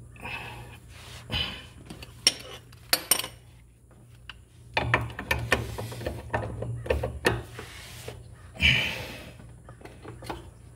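Metal clinks, taps and knocks from hands and a wrench working a traction drive belt onto the pulleys under a John Deere Z920M zero-turn mower. There are a few sharp clicks early, then a dense run of clinks in the middle.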